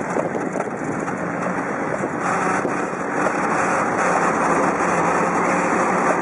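Wind noise rushing over a bicycle-mounted camera's microphone while riding, over the steady sound of city car traffic, growing a little louder about two seconds in.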